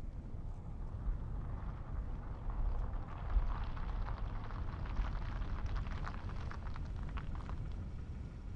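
Toyota SUV driving up and pulling to a stop on an asphalt road. Its tyre noise, with small crackles, rises about three seconds in and fades near the end, over a steady low rumble of wind.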